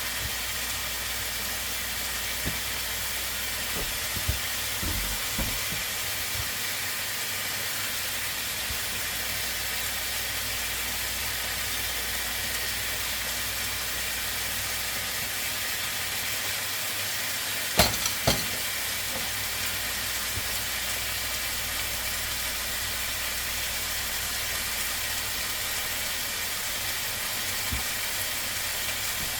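Steady sizzle of marinated chicken frying in a pan on the stove, with a few sharp knocks of utensil or pan, the loudest two close together about eighteen seconds in.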